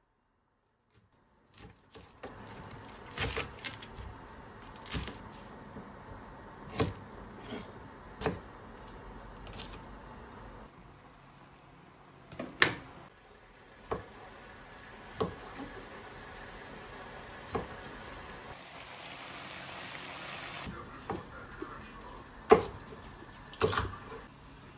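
Kitchen cooking sounds: a dozen or so sharp, separate knocks of a knife on a wooden cutting board and a wooden spatula in a frying pan, coming every second or two over a steady low hiss.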